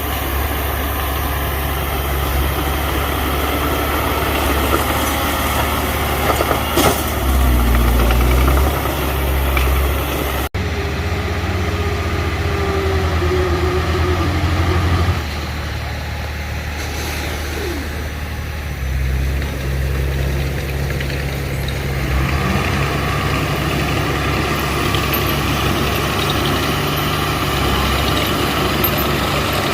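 Heavy machinery engine running steadily, its note shifting up and down several times as the load changes, with an abrupt break about ten seconds in.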